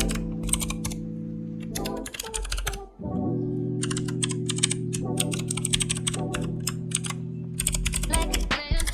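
Computer keyboard typing in short bursts of rapid key clicks, over background music with sustained low chords that cut out briefly about three seconds in.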